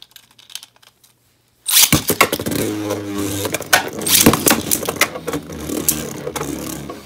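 After a quiet moment, two Beyblade Burst spinning tops are launched into a plastic stadium about a second and a half in, then spin and clash, with a steady whirring and many sharp clicks of their hits.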